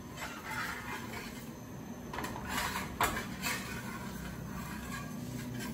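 Faint scrapes and taps of a metal spatula on an iron tawa as a paratha is turned and pressed, a few soft strokes about two to three and a half seconds in, over a low steady hiss.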